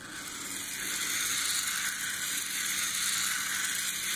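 Small solar-powered toy DC motor and plastic gearbox whirring steadily as the solar kit's space station build runs on its wheels, rising over about the first second and then holding.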